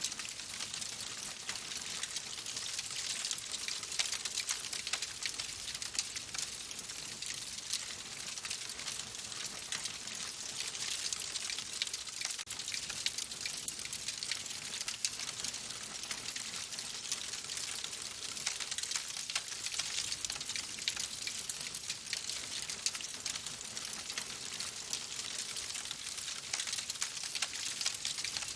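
Wood fire in a fireplace crackling steadily: a dense run of small sharp pops and snaps over a constant hiss.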